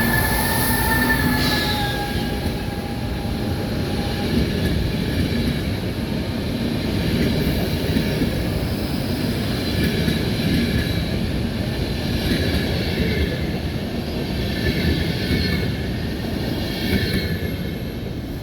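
A train running along the track with a steady rumble of wheels on rails. A whine falls slowly in pitch over the first few seconds.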